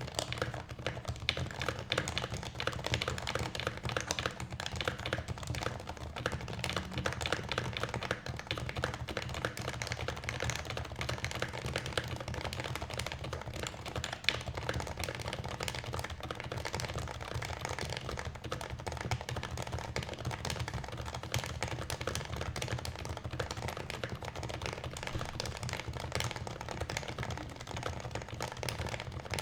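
Custom HHKB-layout mechanical keyboard, the DNworks Taycan, being typed on continuously: a dense, steady stream of key clacks that starts abruptly.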